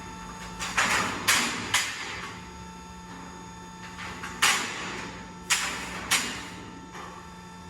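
Eisele Behringer PSU 450 CNC cold saw running: a steady machine hum under a series of sudden, sharp mechanical clunks, about six of them, each fading within a fraction of a second.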